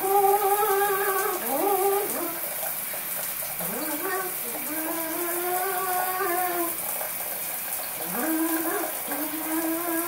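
Harlequin macaw singing: a string of drawn-out notes, each sliding up at the start and then held, some for about two seconds. Steady hiss of shower spray underneath.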